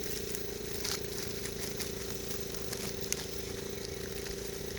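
Power tool spinning a brass wire brush against the rusty, oily steel of the hub mounting, cleaning it before a new wheel hub goes on: a steady motor whine with gritty scratching, cutting off just at the end.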